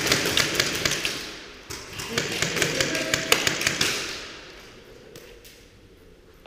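Airsoft guns firing rapid, irregular shots that echo in a large hall, dying away after about four seconds.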